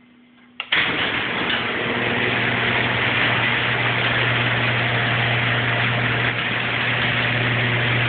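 A click, then an electric garage door opener starts and runs steadily, a low motor hum under the noise of the garage door travelling down as it closes.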